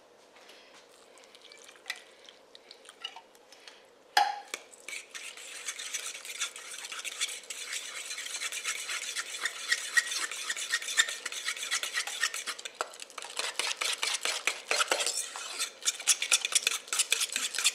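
A utensil stirring a thick sauce of canned cream of mushroom soup, gravy mix, onion soup mix and water, scraping and clinking rapidly against its container. A few light clicks come first, then a sharp knock about four seconds in as the brisk stirring begins and grows louder.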